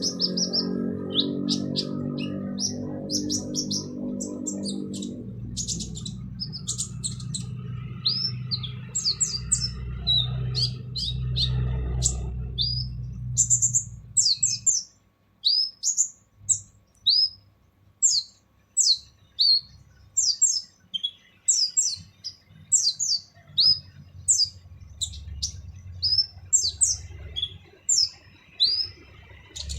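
Kolibri ninja sunbird calling in its harsh voice: quick, sharp, high chirps and short sweeping notes, crowded at first and then about two a second. A low hum runs beneath the first half and stops about halfway.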